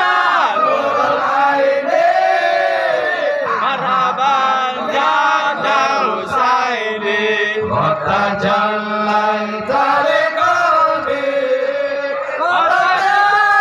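Men's voices chanting an Islamic devotional text together from written sheets into microphones, in long drawn-out notes that bend up and down.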